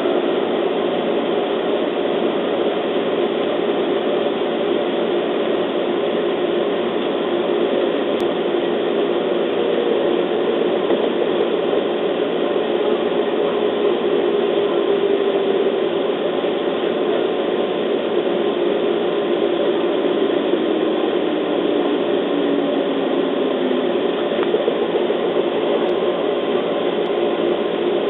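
JR East 211 series electric train running, heard from inside the carriage: a steady rumble of wheels on the rails, with a tone that falls in pitch in the second half as the train slows on its approach to a station.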